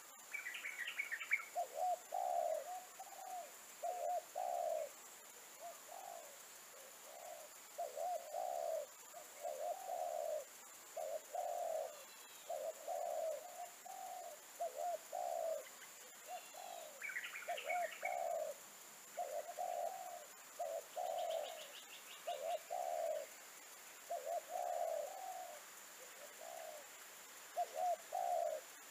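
Spotted dove cooing over and over in short repeated coo phrases. Another small bird chirps briefly near the start and again about two-thirds of the way in, and there is a short high trill in between.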